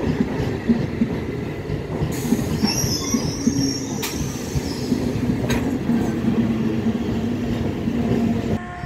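Indian Railways passenger train coaches passing close at speed: a heavy, uneven rumble of wheels over the rails, with a high wheel squeal from about two to four seconds in and a few sharp clanks. The sound cuts off suddenly near the end.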